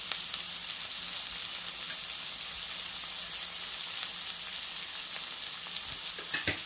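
Boneless chicken pieces sizzling in oil in a pan on a lowered flame: a steady hiss with small crackles and pops.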